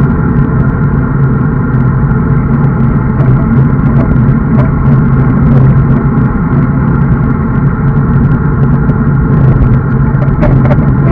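Loud, steady rush of wind on an action camera's microphone, mixed with road-bike tyre noise on asphalt, while riding at speed.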